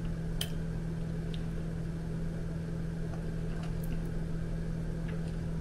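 A steady low hum with a faint background hiss, broken by a few faint clicks.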